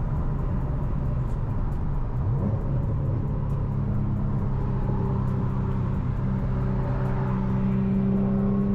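Car engine and road noise: a steady engine drone that creeps slightly up in pitch over the last couple of seconds.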